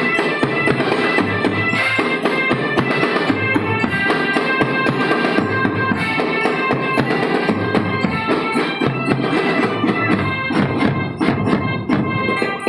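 Marching drum band playing: a dense beat of snare and bass drums under a melody of held notes.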